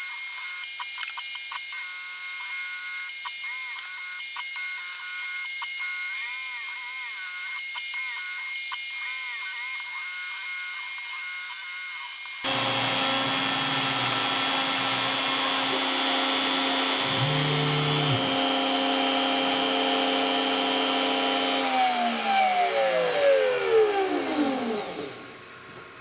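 X-Carve CNC router carving wood, its router spindle whining steadily. About halfway in the sound turns suddenly louder and fuller. Near the end the router is switched off and spins down in a falling whine, marking the end of the carve.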